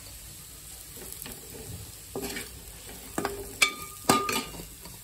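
Steel spoon stirring and scraping diced potatoes in a metal pot over a faint steady frying sizzle. In the second half the spoon knocks against the pot several times, each clank ringing briefly.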